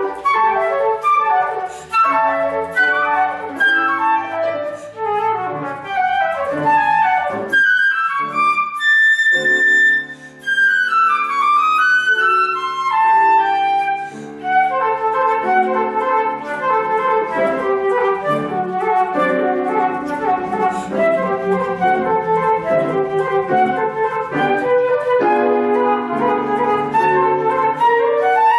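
Concert flute playing quick running passages with grand piano accompaniment. About eight seconds in the flute holds a single high note, then runs back down, before the fast figures and piano chords carry on.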